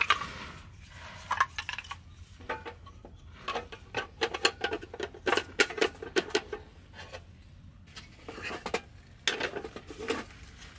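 Thin wooden slat boards clacking and knocking against each other and against a hard black storage box as they are laid on it one by one to form a lid, in quick clusters of sharp clicks.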